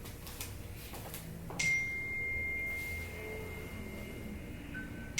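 A sharp tap followed by a single clear, high ringing tone held steadily for about three and a half seconds, then a second tap starting the same tone again near the end.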